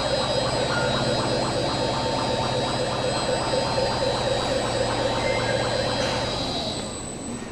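Crane machinery running with a steady whine of several tones and a fast rhythmic rattle, the abnormal noise of the machine. It dies away near the end.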